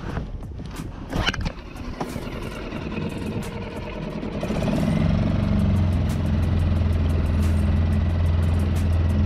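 A motor starts running about five seconds in and holds a steady low hum. Faint clicks come and go throughout, with a louder knock about a second in.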